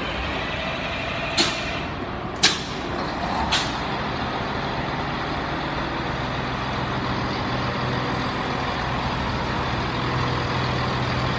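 Diesel multiple-unit train standing at a station platform with its underfloor diesel engine idling in a steady drone. Three short, sharp air-brake hisses come about a second apart a second or so in. In the second half a low engine hum stands out more steadily.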